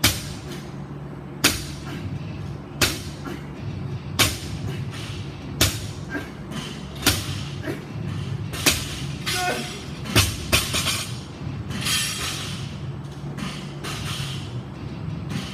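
A heavy barbell with bumper plates knocking on the gym floor at each deadlift rep, about once every one and a half seconds, eight times. The last is a quick double knock as the bar is set down. Faint music plays underneath.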